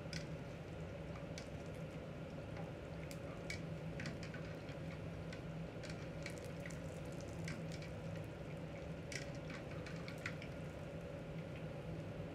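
Stove-top cooking sounds: a steady low hum under irregular small pops, ticks and drips of liquid in a pot.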